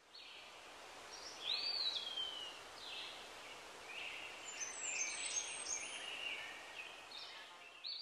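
Outdoor ambience: a steady soft hiss with several birds calling. About a second and a half in there is a louder call that rises and then slides down, followed later by a run of short chirps.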